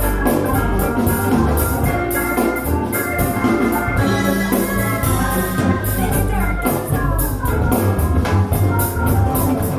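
Recorded music with a drum kit, a bass line and a bright melodic instrument, played back through Bowers & Wilkins 707 S2 bookshelf speakers, with cymbal strikes repeating at an even beat.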